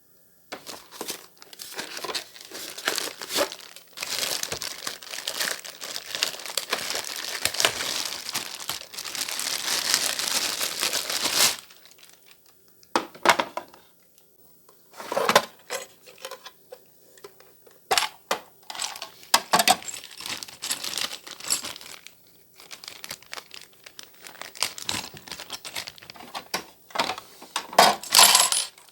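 Packaging crinkling and rustling as it is handled and torn open. The sound is dense and continuous for the first dozen seconds, then turns into sparser crackles and knocks.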